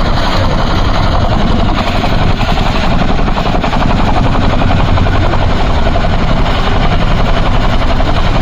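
Boeing CH-47 Chinook tandem-rotor helicopter running close by: loud, steady rapid beating of its rotor blades over the rush of its turbine engines.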